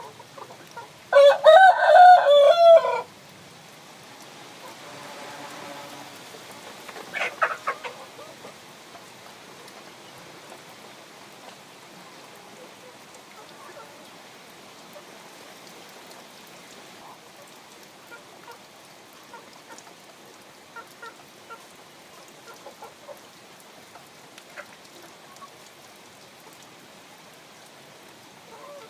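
A rooster crows once, loud, starting about a second in and lasting about two seconds. A short run of clucks follows around seven seconds in, then faint scattered clucks.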